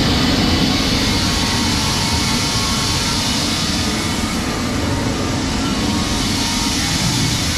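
Shelled corn pouring from a grain cart's bottom gate onto a steel dump-pit grate, over the steady running of heavy machinery.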